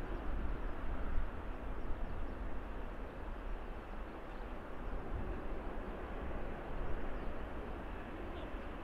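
Twin turbofan engines of a Boeing 787 at takeoff thrust during climb-out: a steady rushing rumble with a deep low end, slowly fading as the jet climbs away.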